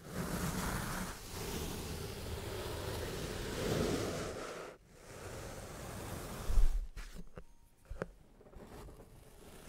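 Sand being cut: a steady grainy hiss with two brief breaks and a short low thump about six and a half seconds in.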